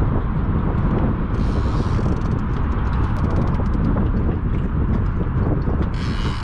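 Steady low rumble of wind buffeting the microphone, with rapid faint clicking from a fishing reel being cranked as a hooked striped bass is brought to the landing net.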